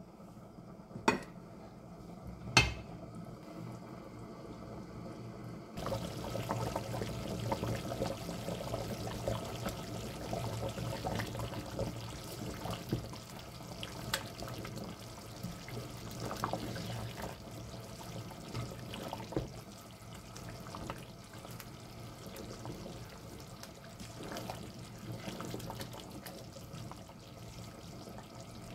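A spatula stirring a pot of thick, simmering lamb curry, the sauce sloshing wetly; the stirring starts about six seconds in. Before that come two sharp knocks, about a second and a half apart.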